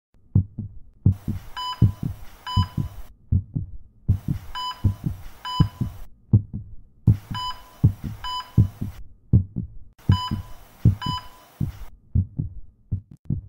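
Heartbeat sound effect, low thumps in pairs, with a heart-monitor track laid over it: about every three seconds a two-second stretch of hiss carrying two short high beeps.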